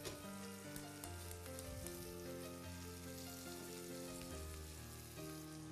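Salmon pieces sizzling in hot oil in a frying pan, a soft steady crackle that fades slightly, under quiet background music of held chords.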